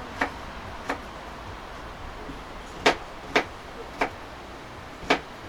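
About six short, sharp taps at irregular intervals over a steady low hiss.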